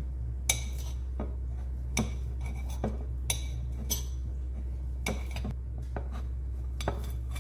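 Small kitchen knife slicing through a sausage and tapping against a plate, about nine sharp clicks at irregular intervals, over a steady low hum.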